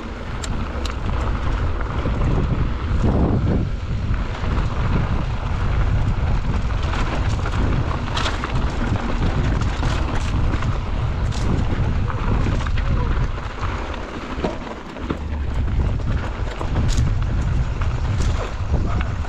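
Wind buffeting the microphone over the steady rumble of mountain-bike tyres on a dirt trail, with scattered clicks and knocks as the bike rattles over rough ground.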